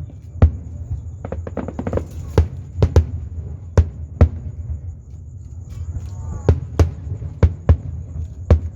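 Aerial fireworks bursting: a quick cluster of sharp bangs in the first couple of seconds, then single bangs about every half second to a second, over a steady low rumble.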